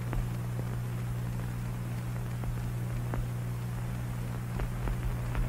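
Background noise of an old film soundtrack: a steady low hum under even hiss, with a few faint scattered clicks.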